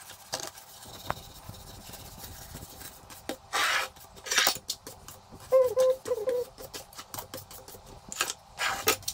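Plastic dish brush scrubbing a table top in short strokes, twice about a third of the way in and twice near the end, with a brief squeaky tone in between.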